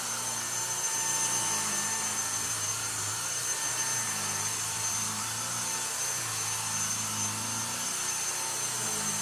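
Cordless bedding vacuum cleaner running steadily with a constant whine, its low hum swelling and dipping as it is pushed back and forth over a mattress.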